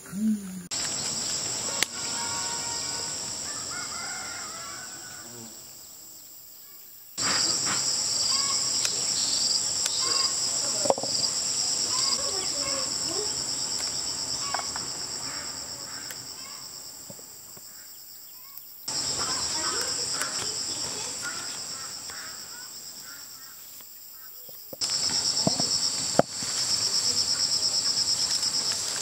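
A steady, high-pitched insect chorus that starts afresh abruptly several times and fades a little within each stretch, with faint scattered short chirps beneath it.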